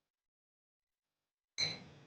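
Silence, then near the end a single sharp tap with a short ring: a mixing utensil knocking against the bowl as mixing of glue and shaving foam begins.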